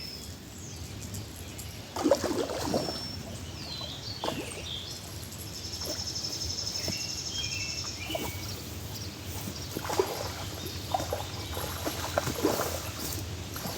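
Water splashing in irregular bursts as a hooked catfish thrashes at the surface near the riverbank.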